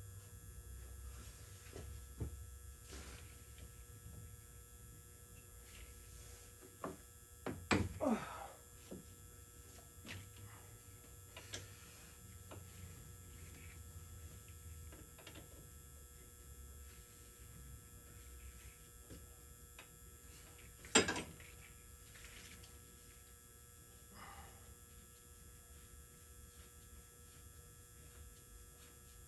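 Scattered knocks and clicks from hand work on a skid steer's fan gearbox, with a cluster about eight seconds in and one sharp knock about twenty-one seconds in, over a steady low electrical hum.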